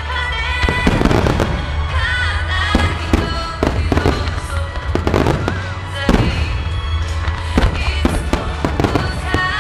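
Aerial firework shells bursting in rapid succession during a festival finale: many sharp booms and cracks follow one another throughout. Music plays loudly alongside.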